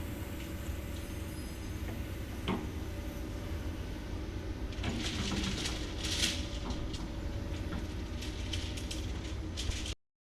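Hydraulic excavator engines running steadily, with clanking and scraping of steel being handled, heaviest from about five seconds in and again near the end. The sound drops out briefly just before the end.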